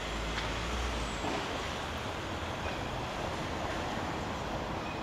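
Steady outdoor rush of distant traffic, with a low rumble of wind on the microphone in the first second.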